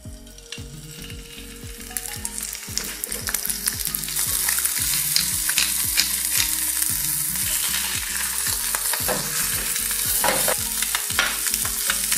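Perch fillet frying skin side down in hot oil in a frying pan. The sizzle builds over the first few seconds, then holds steady with scattered pops and crackles.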